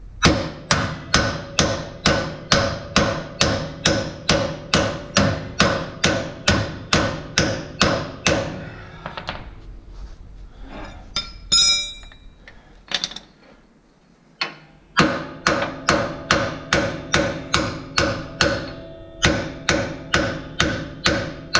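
Hammer striking a steel punch against the air-brake assembly of a trailer axle: a steady run of ringing metal blows, about two and a half a second, then a pause of a few seconds with a few loose clanks and a brief high ring, then a second steady run of blows.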